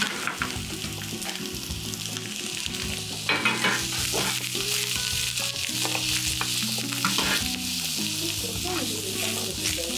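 Sliced onion and lotus root sizzling in sesame oil in a frying pan, turned over and over with metal tongs, with scattered clicks and scrapes of the tongs on the pan.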